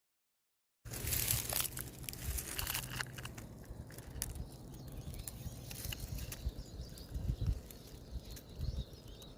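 Rustling and crackling with many scattered sharp clicks over an uneven low rumble, starting suddenly about a second in.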